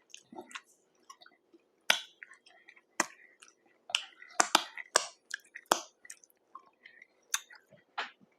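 Close-miked mouth sounds of a person eating a saucy burger: irregular wet chewing, smacks and clicks, heaviest from about halfway through.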